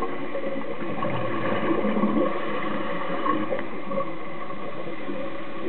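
Steady underwater ambience heard through a camera housing: an even, muffled hiss with a faint steady hum in it.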